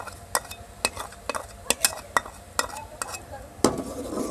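Metal spoon tapping and scraping against a bowl and the rim of a metal cooking pot as ghee is knocked off it into sugar syrup: about ten sharp clinks at an uneven pace, the loudest a little after three and a half seconds in.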